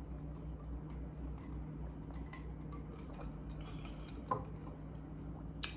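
Faint small clicks and crackles of someone eating fast food up close, over a steady low hum, with a sharper click about four seconds in and another near the end.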